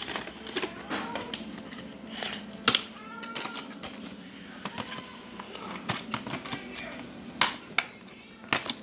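Hands working a plastic Transformers action figure and its packaging: irregular sharp plastic clicks and rattles, with some rustling, as the parts are moved and pressed.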